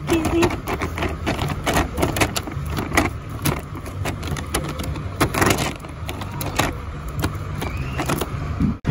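Plastic carrier bag crinkling and rustling in quick, irregular crackles as live, freshly caught small fish flop about inside it, over a low steady rumble. The sound cuts off suddenly near the end.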